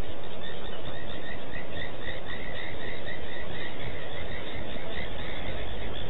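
An animal calling in a rapid series of short, high notes, several a second, that starts about half a second in and stops near the end. Beneath it runs a steady outdoor background hiss.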